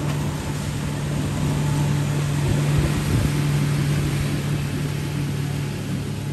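Motorboat running close by: a steady low hum over water and wind noise, growing louder about halfway through and easing off near the end as it passes.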